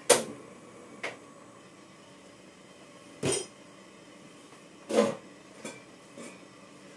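Kitchen clatter: about six separate knocks and clunks of cookware being handled, the loudest right at the start and about three and five seconds in.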